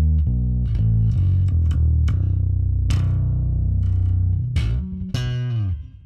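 Seven-string electric bass played clean, straight through a DI preamp, its low end held even by a bass compressor: a run of quick low notes with pull-offs, one note held through the middle, then notes sliding down in pitch near the end.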